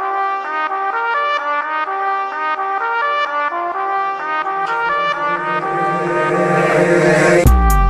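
Background music: a fast, brass-led melody. A rising swell builds over the last few seconds, and heavy bass and drums come in just before the end.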